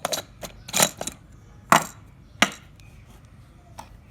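Small hard objects being handled: a handful of sharp clicks and clacks in the first two and a half seconds, the loudest about two seconds in.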